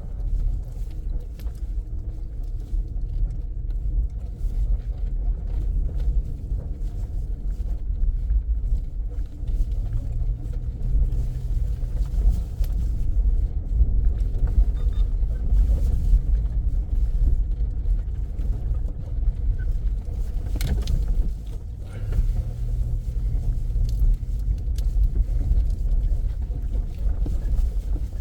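Car driving over a rough unpaved road: a steady low rumble with occasional knocks and rattles from the bumps.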